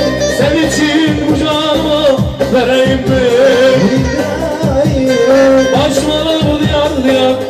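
Live Turkish folk song: a Korg Pa800 arranger keyboard plays a steady drum beat and melody alongside a bağlama, with a man singing a wavering melodic line.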